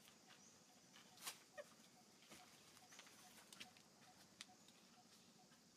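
Near silence: faint outdoor ambience with a few brief, soft clicks, the clearest about a second in.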